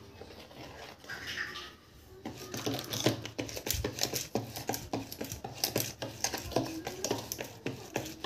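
Stainless steel push-down spinning whisk pumped up and down in a bowl, working semolina and gram flour into creamed ghee and sugar: rapid, repeated clicking and scraping that starts about two seconds in.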